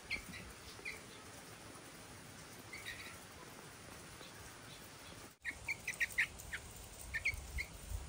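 Young bulbuls giving short, high chirps: a few scattered at first, then a quick run of about five after the middle and a few more near the end.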